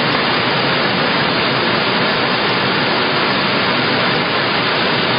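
Envelope pocket-making machine with peel-and-seal strip running at production speed, giving a loud, steady, dense mechanical noise with no distinct beat.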